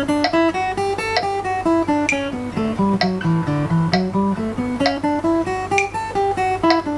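Acoustic guitar playing a single-note scale exercise, stepping evenly up and back down in quick notes, against a metronome clicking about once a second at 65 BPM.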